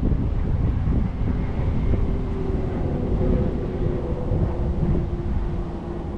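Wind buffeting the microphone in a low rumble, with a faint steady drone underneath from about a second in until about five seconds.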